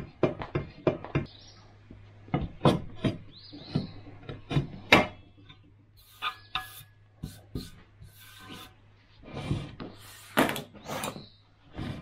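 Sharpening stones and their metal dual stone holder knocking and rubbing as the holder is handled. There is a quick run of clicks, about five a second, for the first second or so, then scattered knocks and rubs.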